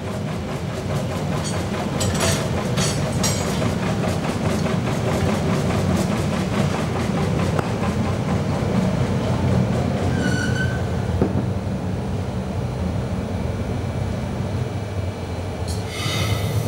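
Forging machine running in a workshop as it works the red-hot end of a large superheater tube, a loud steady mechanical din with a heavy low hum. A few sharp metallic clanks come two to three seconds in, and a brief high squeal about ten seconds in.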